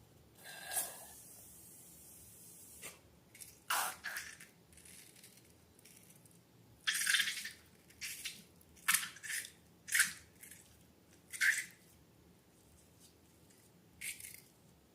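Slime being handled: a faint hiss over the first few seconds, then a string of about eight short, separate wet squishes and drips.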